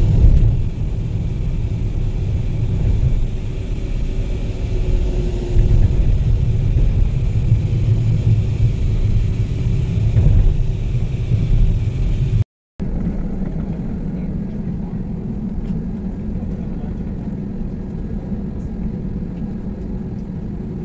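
Steady low road and engine rumble heard from inside a moving road vehicle. About halfway through it cuts off abruptly and gives way to the steadier, even hum of an airliner cabin.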